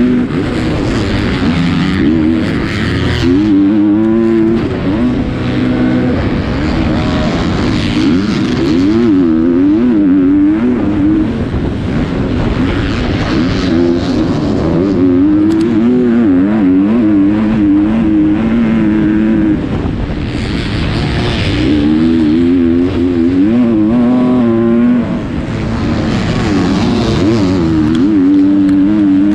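A 250-class motocross bike's engine at race pace, its pitch rising and falling over and over as the throttle opens and closes through shifts, with no let-up.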